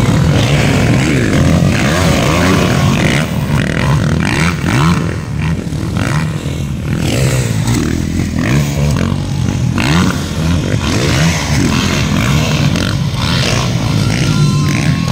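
Motocross dirt-bike engines revving up and down as the bikes race past, the pitch rising and falling with the throttle.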